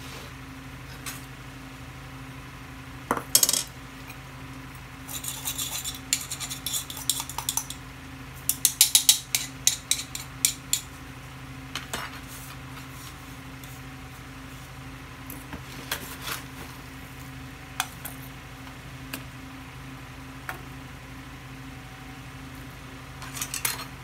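A spoon scooping fertilizer granules and mixing them into dry potting soil in a plastic tub: bursts of gritty rattling and scraping with sharp clicks, thinning to scattered single clicks in the second half. A steady low hum runs underneath.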